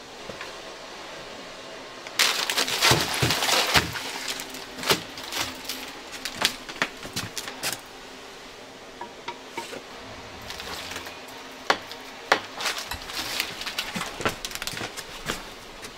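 Steel meat hooks clinking and scraping on the rim of a clay jar oven as meat is hung and handled, with a dense burst of rustling and scraping about two seconds in and scattered sharp clinks after it.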